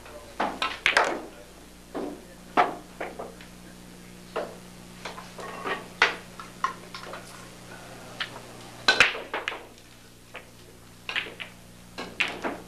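Pool balls clacking: the cue tip striking the cue ball, then balls knocking together and off the cushions, about a dozen sharp clicks, the loudest about a second in and again near 9 s. A low steady electrical hum runs underneath.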